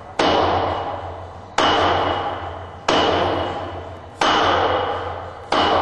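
Hard hand strikes in martial-arts hand conditioning: five blows, about one every 1.3 seconds, each landing sharply and ringing away over more than a second.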